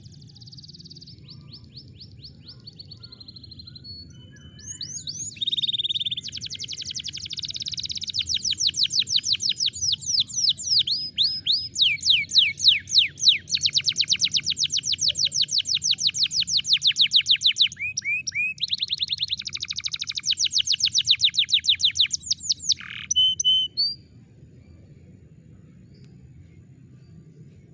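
Canary singing a long song of rapid trills, each a fast run of repeated high notes, about ten a second, switching from one trill to the next; the song stops about 24 seconds in.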